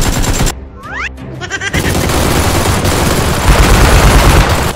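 Rapid automatic gunfire over background music. A short burst comes at the start, then continuous fire from about two seconds in, loudest near the end.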